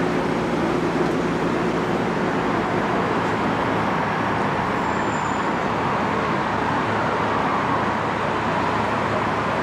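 Steady road traffic noise, an even rush of passing vehicles with no distinct events.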